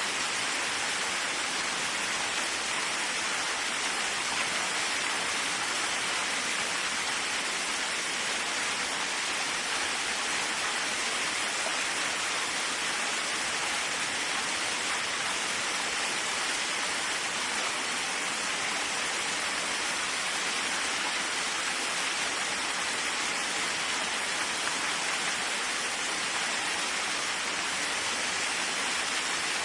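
Waterfall rushing steadily: an even, unbroken hiss of falling water, mostly in the upper range, with little low rumble.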